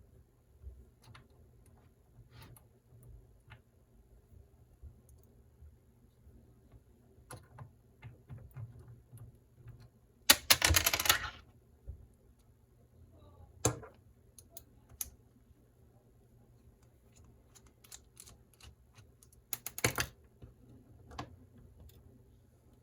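Light clicks and taps of small tools and plastic and metal parts being handled while the motor is taken out of an Axial SCX24 mini crawler, with a louder rattling clatter for about a second near the middle and a shorter one near the end.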